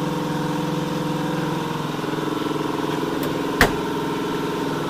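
An old air compressor running steadily, straining to build pressure: it is worn and has not got a lot left in it. A single sharp knock sounds about three and a half seconds in.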